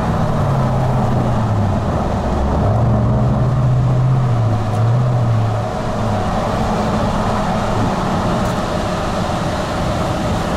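A car driving at highway speed, heard from inside the cabin: a steady rush of road noise under an engine hum. The hum drops in pitch near the start, holds, and fades out about six seconds in.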